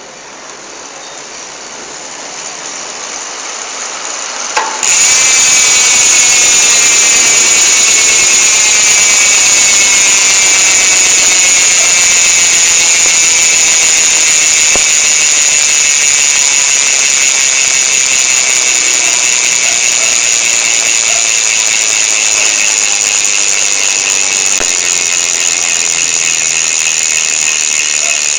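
Hope Pro 2 Evo bike hub freewheeling: the pawls clicking over the ratchet so fast that they make one loud, high-pitched buzz. It grows louder over the first few seconds, jumps up sharply about five seconds in, then holds and slowly eases off as the wheel spins down.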